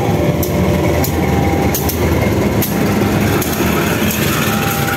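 CC 201 (GE U18C) diesel-electric locomotive running light past at close range: a loud, steady diesel drone, with a few sharp clicks of the wheels over rail joints.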